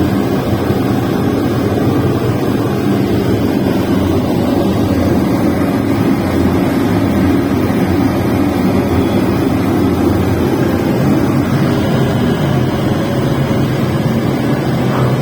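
Industrial burner running: a steady, even low noise of the flame and its blower, unchanged throughout.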